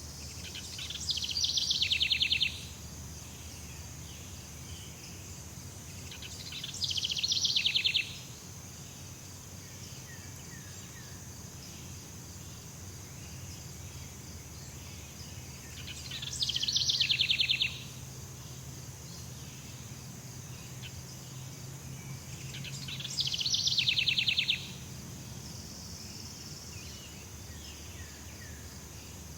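Jungle ambience: a steady high-pitched insect drone, with a loud rapid pulsing trill four times. Each trill builds over about a second and a half and then stops abruptly.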